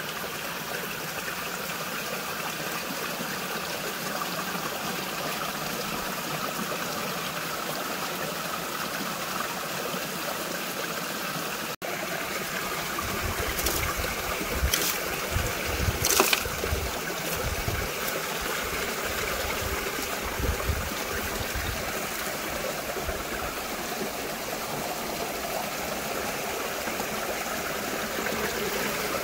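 Water running steadily down a metal flume and over the screened intake box of a micro hydro turbine. About halfway through come a few brief rustles and knocks as a hand clears leaves from the screen.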